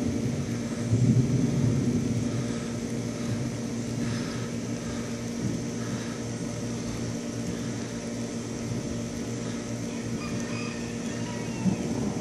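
Distant thunder: a low rumble that swells about a second in and slowly dies away over several seconds.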